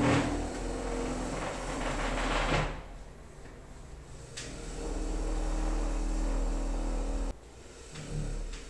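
Metal legs of a glass-topped table dragged across a marble floor in two long scrapes, the second stopping abruptly, with a single click between them.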